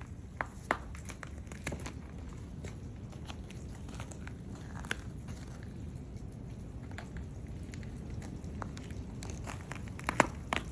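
Footsteps crunching on ice and broken icicles: scattered sharp crunches that come thicker near the end.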